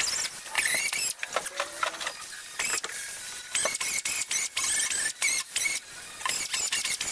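Small air-powered die grinder with a sanding disc grinding down a butt-weld seam on a car's steel floor pan. It runs in short bursts with brief pauses, and its high whine wavers as it bites into the metal.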